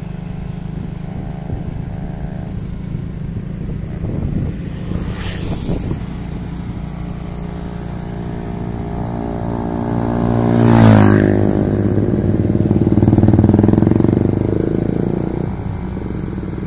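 Steady engine drone and road noise of a moving vehicle, heard from on board. About eleven seconds in, a passing vehicle goes by close, its engine pitch dropping sharply as it passes, and a loud engine swell follows a couple of seconds later.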